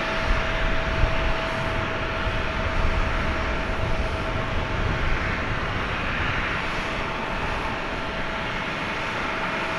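Steady jet-aircraft noise on an airport apron during an Airbus A350-1000 pushback: a continuous rushing hiss with a constant whine, and a low rumble that eases off about halfway through.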